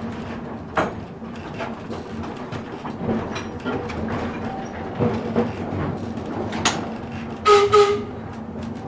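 Electric streetcar running along street track, heard from inside the car: a steady low hum under the rolling noise, with scattered sharp clicks and knocks from the wheels and body. Near the end come two loud short strikes, each ringing with a brief pitched tone.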